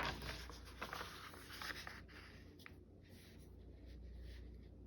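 Faint scratching and rustling of paper being worked by hand, with a few light ticks in the first two seconds, then quieter.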